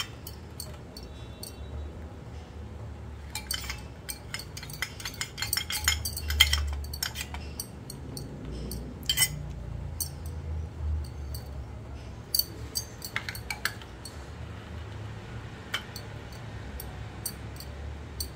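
Scattered light clicks and clinks of a metal spoon in a small steel bowl of flour-and-water paste, with the crinkle of thin samosa pastry sheets being folded by hand, over a low steady hum.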